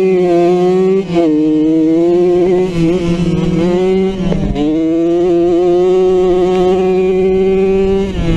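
Dirt bike engine revving high and steady under throttle, its pitch dipping briefly about one second in and again about four seconds in before climbing back.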